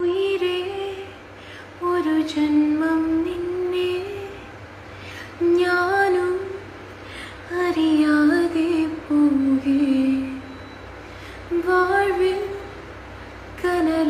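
A woman singing a Malayalam film song unaccompanied, in short phrases with brief pauses between them as she recalls the lyrics.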